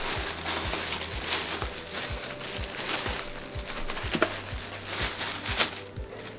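Thin clear plastic bag crinkling and rustling as it is handled and pulled off a telescope tube, in an irregular run of crackles.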